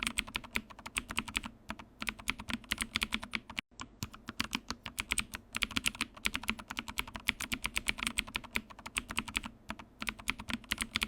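Fast, continuous typing on a computer keyboard, key after key clicking with a few short pauses and a sudden brief dropout about three and a half seconds in.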